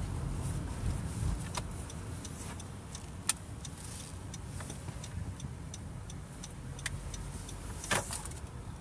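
Inside a 2013 Honda Accord's cabin: low road and engine rumble at low speed, with scattered light clicks and ticks, the loudest about three seconds in and near the end. No brake squeal is heard.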